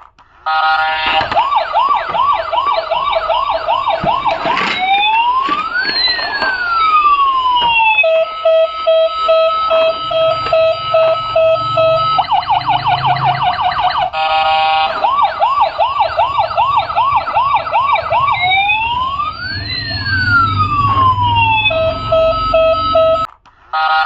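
Electronic toy siren cycling through several emergency-vehicle patterns: quick repeated yelps, crossing rising and falling wails, a steady tone over pulsing beeps, then a fast warble. The whole sequence plays through twice and cuts off suddenly.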